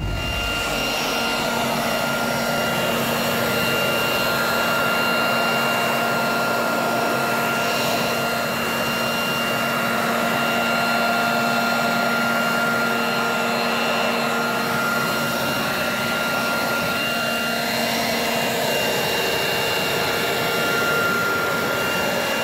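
Corded electric leaf blower running steadily, a rush of air with a steady motor whine, as it blows water off a freshly washed motorcycle.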